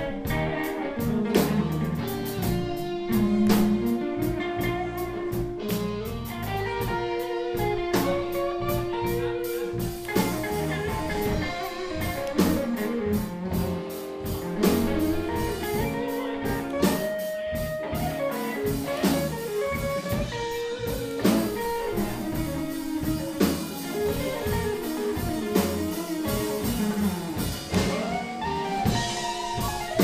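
Live blues band: an electric guitar plays lead lines of held notes that bend in pitch, over a drum kit.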